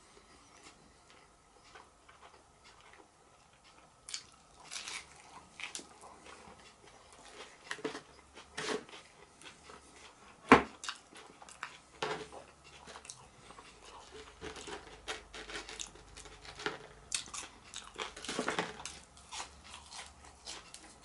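A person chewing and crunching food close to the microphone, with irregular crunches and one sharp, loud click about halfway.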